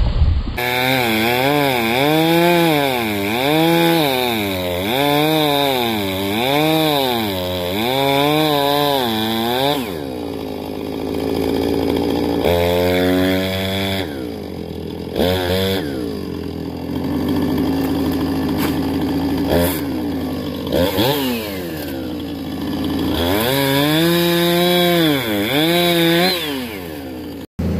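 Gas chainsaw revving up and down about once a second, then cutting into a splintered tree trunk, its engine speed rising and dropping unevenly as the chain works through the wood.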